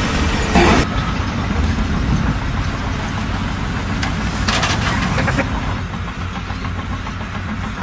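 A heavy engine running steadily with a low rumble, with a brief noisier burst about four and a half seconds in.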